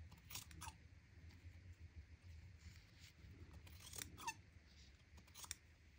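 Scissors trimming a small piece of fabric for a tiny cover button: a few faint, scattered snips in near silence.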